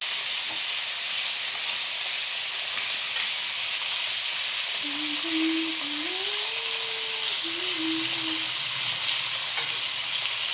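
Two whole tilapia frying in hot oil in a wok, the oil sizzling steadily.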